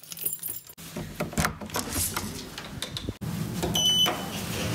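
Knocks and rustling of things being handled, then, about three-quarters of the way through, a short high electronic beep from a lift call button as it is pressed.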